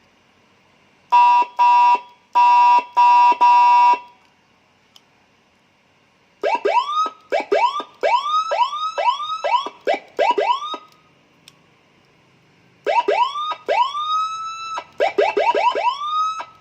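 Electronic siren module, its faulty amplifier IC replaced with a TDA2004, sounding through a speaker off a 12-volt battery and cycling through its tones. First come about five short, steady horn-like beeps. After a pause comes a run of quick rising whoops, then, after another pause, a mix of longer rising wails and fast whoops. The tones come out clean, a sign that the siren is working normally again after the repair.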